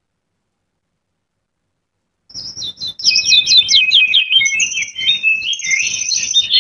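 AI-generated birdsong sound effect: after about two seconds of silence, many rapid high chirps and trills start, overlapping densely and growing louder a second later.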